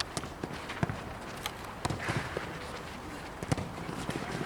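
Irregular sharp taps and thuds from players running on a football pitch and kicking the ball, about eight in four seconds, over a steady outdoor background.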